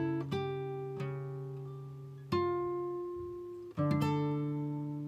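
Background music on a plucked string instrument: a few slow notes and chords, each left to ring out and fade before the next.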